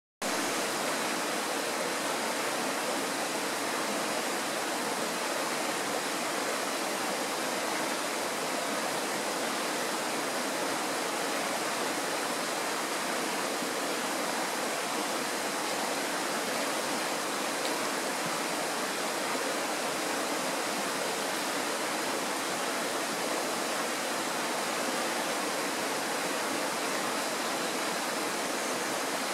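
Kirowa Woda, a Tatra mountain stream, rushing: a steady, even wash of flowing water with no breaks or changes.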